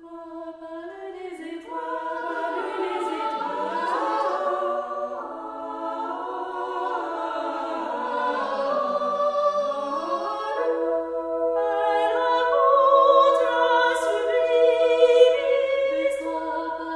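Choral music: several voices singing slow, long-held notes in harmony, as a closing theme.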